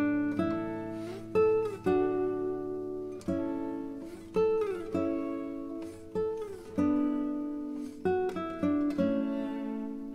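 Background music: an acoustic guitar playing plucked notes that ring and fade, several of them sliding in pitch.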